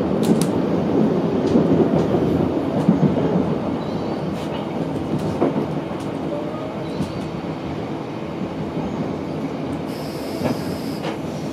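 Regional express train running on the rails, heard from inside the carriage: a steady rumble with scattered clicks from the wheels. It eases slightly, and a faint high-pitched squeal comes in near the end.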